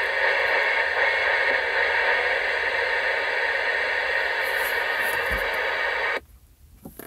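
Cobra 19 Ultra III CB radio on channel 19 putting out a steady hiss of open-squelch static from its speaker, the squelch open and the busy light lit. About six seconds in the hiss cuts off suddenly as the squelch knob is turned up, leaving a few faint clicks.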